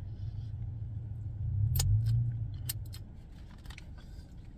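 Steady low hum inside a car cabin, swelling briefly in the middle, with a few scattered sharp clicks and small rustles from eating and handling a hot dog.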